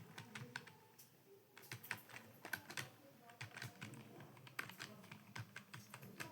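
Computer keyboard being typed on in quick, irregular keystrokes, with a short pause about a second in.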